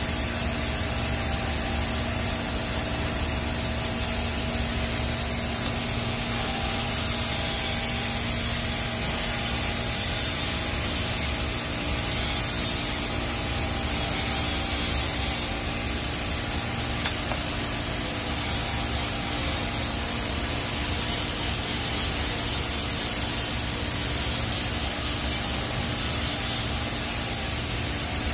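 TIG welding arc on a stainless steel pipe root pass: a steady hiss with a faint hum under it, and one small click about two-thirds of the way through.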